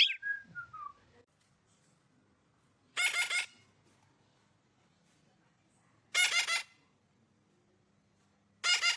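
A whistle gliding down in pitch trails off in the first second. Then come three short, harsh bird calls, about three seconds apart.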